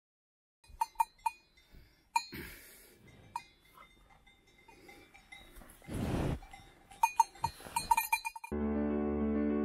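Cowbells on grazing cattle clanking irregularly, with a loud short rush of breath from a cow close to the microphone about six seconds in. Background music comes in near the end.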